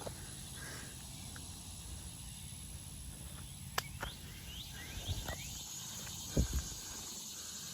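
Rural outdoor ambience: a steady high insect drone, with a bird's short rising chirps in a quick run about four to five seconds in. A sharp click comes just before that and a low thump near the end.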